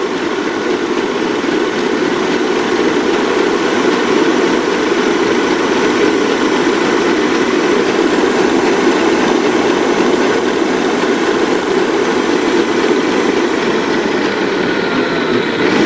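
Stand mixer running steadily, whipping cream in its steel bowl. The cream is not yet stiff and needs a little longer.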